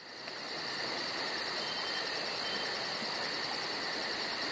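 A chorus of insects chirping, like crickets, in a fast even pulse of about five or six chirps a second over a steady shrill trill. It fades in over the first half second.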